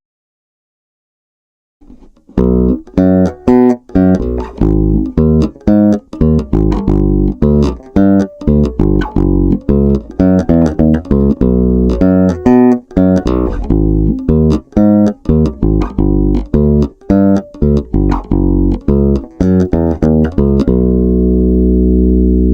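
Electric bass guitar with an EMG humbucker and active EQ, played solo. After about two seconds of silence comes a fast run of plucked notes with sharp, clicky attacks, ending on a held low note that cuts off suddenly at the end.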